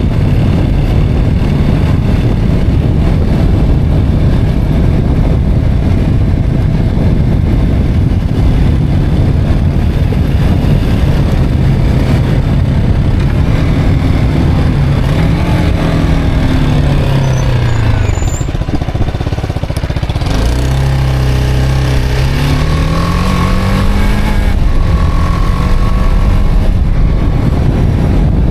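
BMW G 310 R's single-cylinder engine running under way, heavily mixed with wind rushing on the microphone. About halfway through, the engine note falls as the bike slows, then rises again as it accelerates.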